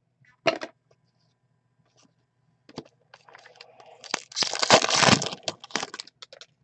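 Trading-card packaging being handled: a sharp click about half a second in, then crinkling and tearing that builds to a loud burst around four to five seconds in and fades out.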